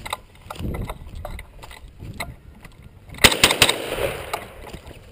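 Handling noise from an AR-15 carried on the move: repeated clicks, knocks and rattles of the rifle and its gear, with a low thud just under a second in and a louder cluster of sharp knocks and scraping about three seconds in.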